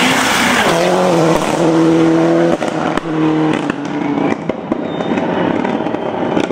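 Rally car engine running hard, its note holding and then stepping in pitch through gear changes, with sharp exhaust cracks and pops over loud tyre and gravel noise. The sound eases somewhat after about two and a half seconds.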